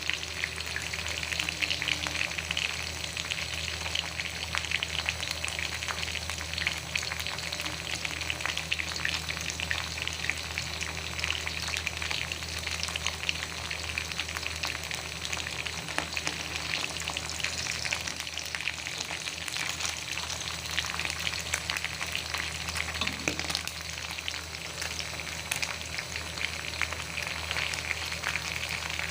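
Food frying in hot oil in a pan: a steady sizzle thick with small crackles and pops, over a constant low hum.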